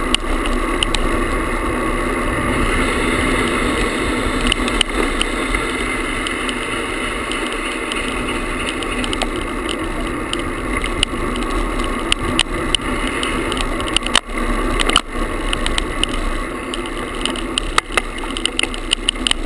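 Vibration buzz and rattle of a handlebar-mounted GoPro camera tied on loosely with a shoelace, steady and loud as the road bike rolls along the pavement, with a few sharp knocks in the second half.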